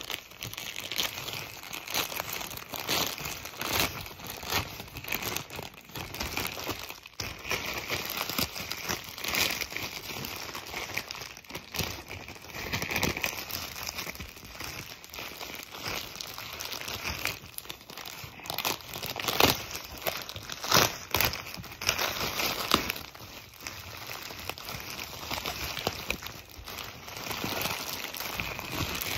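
Plastic poly mailer crinkling and rustling as it is torn open and handled, in irregular crackles. The loudest crinkles come about two-thirds of the way through.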